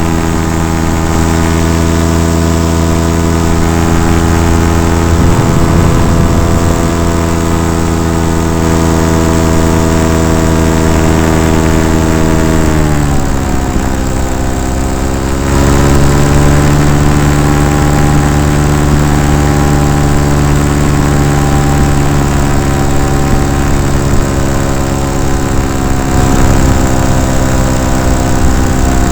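Paramotor engine and propeller running steadily. About halfway through the engine speed falls in a smooth downward glide, then holds at the lower speed.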